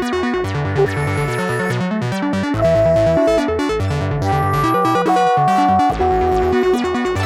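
Electronic background music with synthesizer notes over a steady, repeating bass line and beat.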